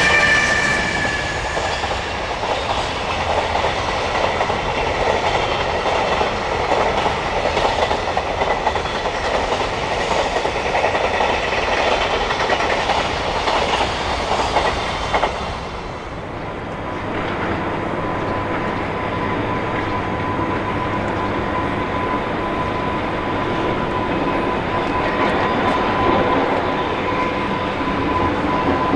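Container freight wagons rolling past with the clickety-clack of their wheels over the rail joints. About halfway through the sound changes abruptly to an EH500 electric locomotive approaching slowly through station tracks, with a steady whine over a low rumble.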